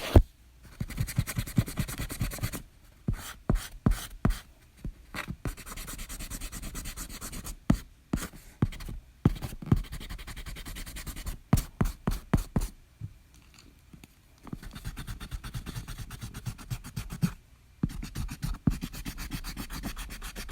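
Eraser rubbing back and forth on paper in quick scrubbing strokes, in spells of a few seconds with short pauses between.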